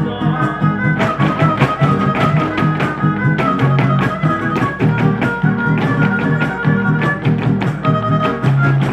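Huapango music played on strings, with a rapid clatter of zapateado footwork from the dancing couples stamping over it.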